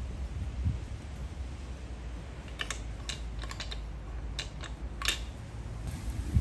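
Hand-worked lid clamp and fittings of an Afghan kazan pressure cooker clicking: an irregular run of about eight sharp clicks between about two and a half and five seconds in, the last the loudest, over a low steady rumble.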